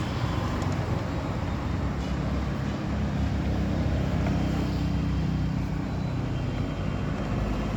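Steady low hum of motor-vehicle engines and road traffic, unbroken for the whole stretch.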